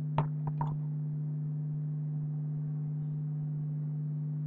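A steady low hum, two or three tones held without change, with a few light clicks and taps within the first second as things are handled while weighing a fishing rod.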